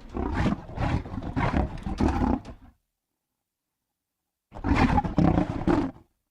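Creature sound effects made from processed animal vocalisations: two separate guttural roars, a longer one pulsing about twice a second, then after a pause of total silence a shorter one.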